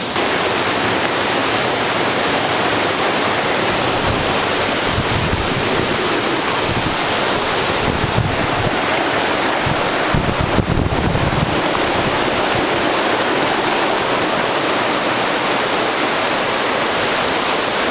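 Waterfall pouring into its pool, a steady loud rush of water. Wind buffets the microphone in low gusts around the middle.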